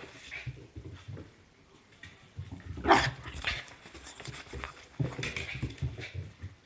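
Mame shiba dog excitedly greeting its owner, with a sharp cry about three seconds in and shorter ones around five seconds, over rustling and bumping.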